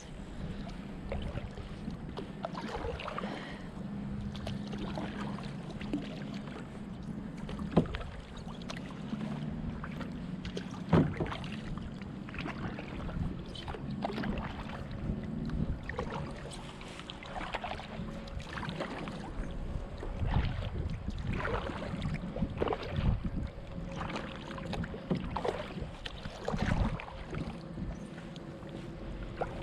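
A kayak being paddled on open water: paddle strokes dipping and splashing every few seconds, with a couple of sharp knocks.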